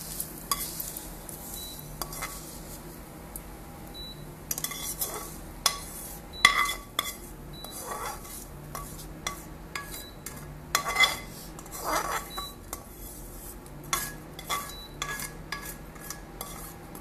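A spatula scraping and knocking against a non-stick kadai as roasted vermicelli is emptied onto a plate: irregular clinks and scrapes, the loudest about six and eleven seconds in.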